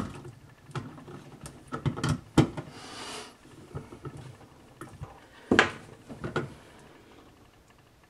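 A screwdriver and plastic parts handled in a dishwasher tub floor while a screw is driven into plastic: scattered clicks and knocks, a short scraping hiss partway through, and two louder knocks a little after halfway.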